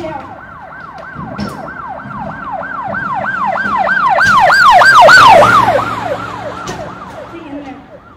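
Emergency siren sound effect wailing quickly up and down, about three sweeps a second. It swells to its loudest about five seconds in, then fades away as if driving past.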